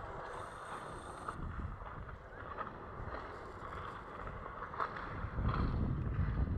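Wind buffeting the microphone over a steady hiss, with stronger low gusts near the end.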